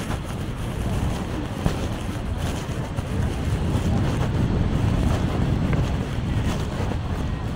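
Wind buffeting the microphone in a low, steady rumble that gusts harder around the middle.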